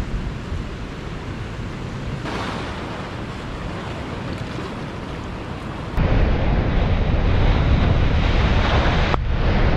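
Sea surf breaking on a rocky shore, with wind on the microphone. About six seconds in the sound turns much louder and deeper as a big wave crashes and throws spray over the rocks.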